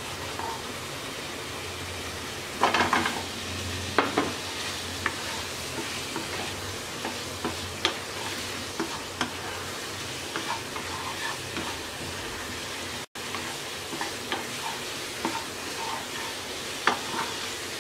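Small fried potatoes stirred through a spice paste in hot oil in a non-stick wok, a spatula scraping and knocking against the pan over a steady sizzle. There is a louder burst of clattering about three seconds in.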